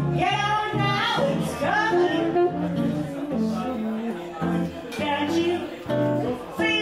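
Live jazz: a woman singing into a microphone over electric archtop guitar accompaniment, with alto saxophone in the band.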